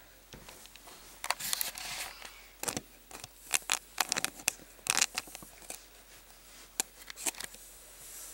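Camera handling noise: irregular rustles, clicks and knocks as the camera is moved and set in place, most of them in the first five seconds and only a few scattered clicks after.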